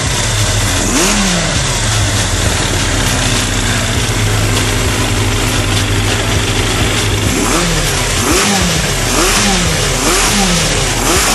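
Yamaha YZF 1000 inline-four idling with its airbox removed and the four carburettor intakes open, while its carburettors are being cleaned and balanced. It runs steadily, with a short throttle blip about a second in and a quick series of blips in the last few seconds.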